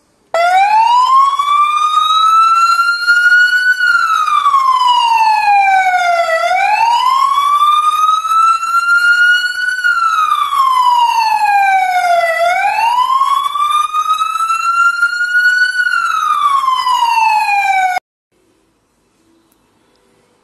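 Tornado motorcycle emergency kit's siren speaker sounding its wail tone, switched on from the handlebar control: a loud slow rising and falling howl, three rises of about three and a half seconds each with shorter falls, that cuts off suddenly near the end.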